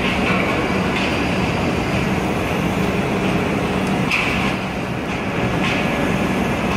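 Volvo crawler excavator's diesel engine running steadily under hydraulic load as its telescopic dipper arm extends and lowers a clamshell grab. A few short high-pitched sounds rise above the engine, the clearest about four seconds in.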